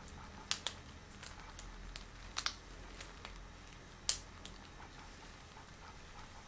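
Extra-long latex gloves being handled: scattered sharp snaps and clicks of the latex, two in quick succession near half a second in, a pair around two and a half seconds, and the loudest about four seconds in.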